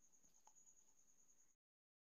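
Near silence: faint recording hiss with a thin, steady high whine, falling to dead digital silence about three-quarters of the way through.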